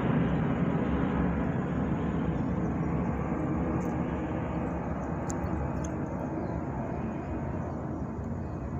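Jet noise from an Embraer E175's two GE CF34-8E turbofans as the airliner climbs away overhead, a steady sound slowly fading as it recedes.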